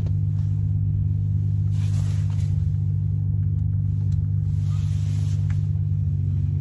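A 40 Hz test tone played through car subwoofers driven by an NVX XAD15 amplifier: a steady, unbroken bass drone. Brief rustling of a puffer jacket about two seconds in and again about five seconds in.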